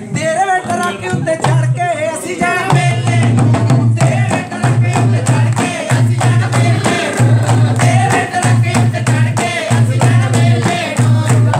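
Punjabi folk song sung by women to dhol drumming and steady rhythmic hand clapping, with a jingling rattle in the percussion.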